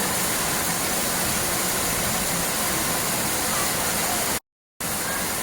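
Steady rushing water, like a waterfall or fast stream, broken by a sudden half-second dropout to dead silence near the end.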